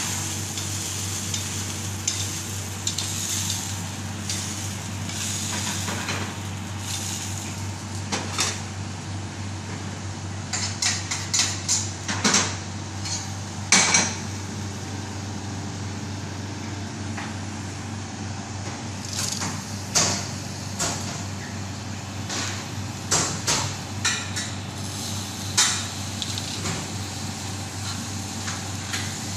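Stainless frying pans and metal tongs clinking and knocking against a gas range's grates and griddle, in scattered sharp strikes with a busy cluster in the middle, over a steady low hum.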